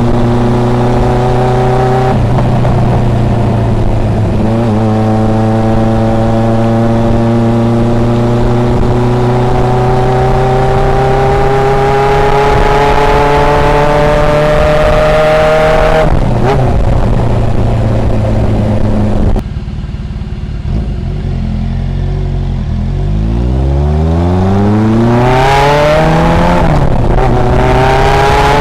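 Suzuki GS750 air-cooled inline-four running through a homemade 50 mm exhaust silencer, loud and deep-toned, its pitch climbing slowly under throttle with short steps at the gear changes. About two-thirds through the throttle closes and the sound drops away, then the revs rise steeply again.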